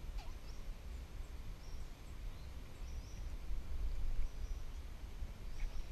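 Outdoor ambience: a steady low rumble of wind on the microphone, with short, high bird chirps several times.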